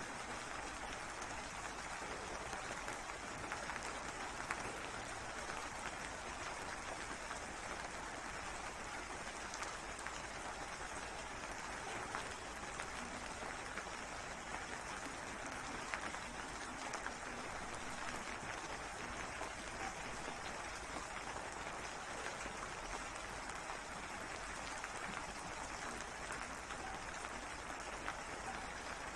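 Steady rain falling, an even hiss made up of many small drop ticks.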